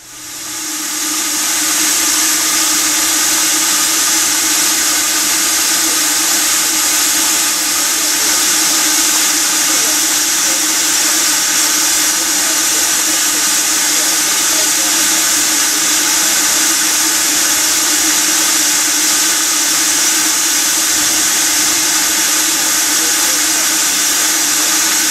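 Narrow-gauge steam locomotive giving off a steady, loud hiss of steam as it runs along the line. The sound rises in over the first second or two and then holds level, with no separate exhaust beats.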